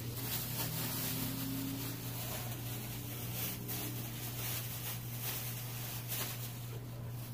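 Plastic bag rustling and crinkling in short scattered bursts, over a steady low hum.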